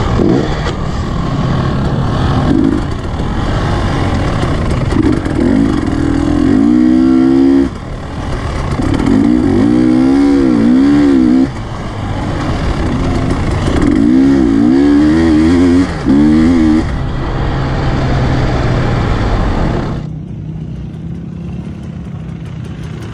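Two-stroke KTM dirt bike engine heard from the rider's helmet camera, revving up and down repeatedly as the rider works the throttle through corners, over a rush of wind and dirt noise. About 20 seconds in the sound drops to a quieter, duller bike engine.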